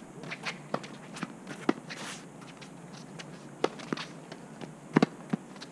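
Tennis ball knocks during a rally on a hard court: rackets hitting the ball and the ball bouncing, mixed with footsteps. The knocks are spread out, and the two loudest come close together about five seconds in.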